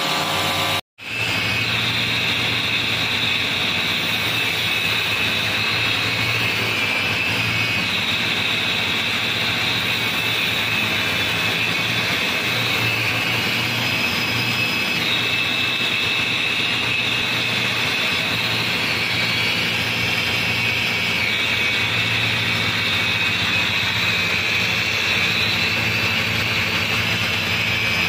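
Electric motor-driven belt sander running steadily, its sanding belt whirring as a knife handle is ground against it, the pitch shifting now and then as the work is pressed on. A brief dropout about a second in.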